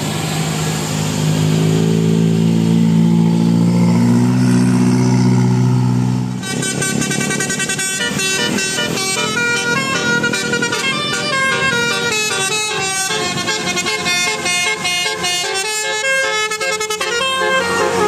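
A coach bus's engine drones low and steady close by. About six seconds in it gives way suddenly to a telolet horn, the multi-tone musical bus horn, playing a fast tune of quickly stepping notes.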